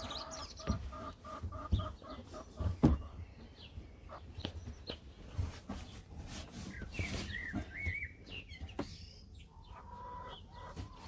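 Chickens clucking, with scattered knocks and handling bumps.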